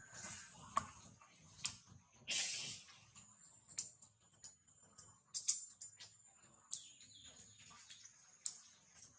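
Faint forest ambience: a steady, high-pitched insect whine with scattered sharp clicks and rustles, the longest rustle about two and a half seconds in.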